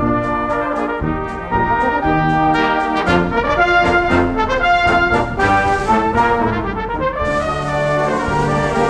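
Full brass band playing a march, with many brass instruments sounding together. The band gets louder about a second and a half in, and a high hiss of percussion comes in about seven seconds in.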